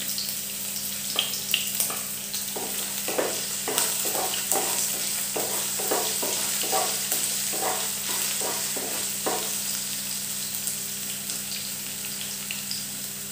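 Chopped garlic and ginger sizzling in hot oil in a kadai, with a spatula stirring and scraping the pan in quick strokes, about two a second, through the middle few seconds.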